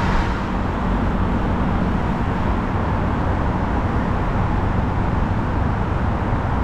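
Steady road traffic noise: a continuous rumble of passing cars.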